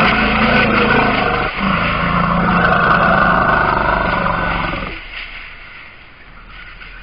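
African forest elephants trumpeting loudly in alarm, a harsh continuous call with a short break about a second and a half in, stopping about five seconds in. It is their general alarm at a strange elephant, their own reflection in a mirror, as the adults close around the calf.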